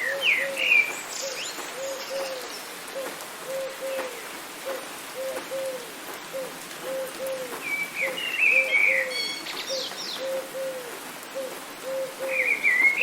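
Birdsong over rain: low hooting notes in pairs, repeated steadily, with short higher songbird phrases at the start, about two-thirds of the way through and at the end, over a steady hiss of rain.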